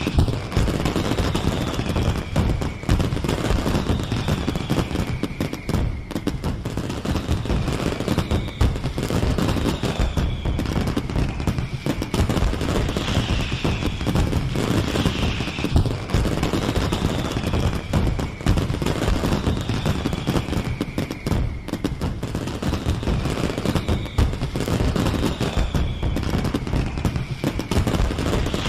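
Fireworks display: a dense, continuous barrage of crackling bangs and booms, with a falling whistle recurring every second or two.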